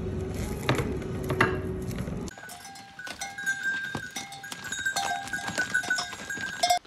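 Background music for about two seconds, then an abrupt cut to small livestock bells clinking irregularly among clicks and knocks, from a flock of grazing animals.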